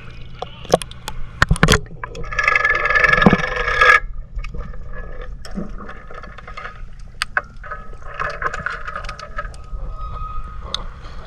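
Water sloshing and splashing against a camera held at the waterline. About four seconds in, the splashing cuts off abruptly and gives way to muffled underwater sound with scattered clicks and crackles over a low hum.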